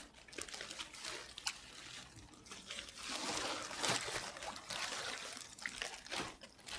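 Water trickling and splashing as a fish is put into a keep net in the river, with small scattered clicks, growing busier about halfway through.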